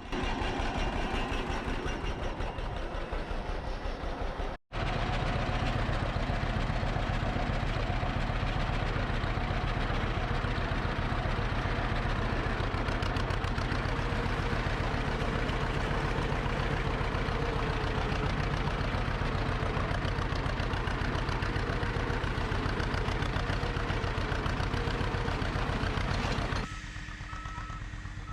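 John Deere B's two-cylinder engine running steadily under load while pulling a 44H plow through hard ground, with even, rapid firing pulses. The sound breaks off for an instant about four and a half seconds in, and drops quieter shortly before the end.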